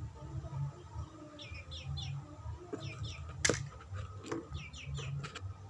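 Birds chirping in short runs of three or four quick falling chirps, with a single sharp click about three and a half seconds in.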